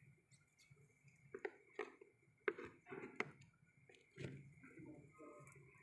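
Faint, irregular scrapes and squelches of a wooden stick stirring a wet paste in a small clay pot.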